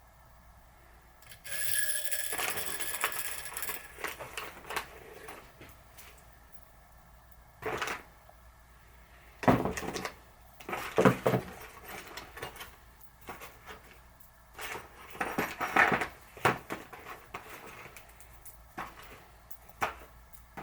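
Small steel parts of a bearing press (washers, nut and tube) clinking and rattling as they are handled and fitted together, in several short bursts with single clicks between.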